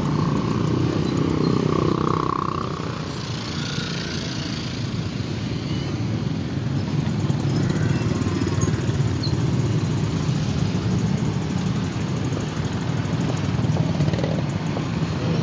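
Many small motorcycle and scooter engines running together in dense traffic, a steady rumble.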